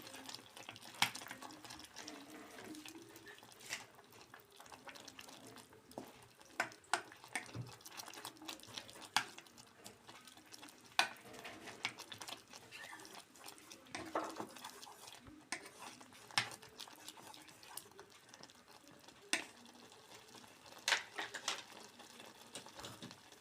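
Kitchen work: scattered clinks and knocks of dishes and utensils, a dozen or so short sharp strikes spread irregularly over a faint steady background.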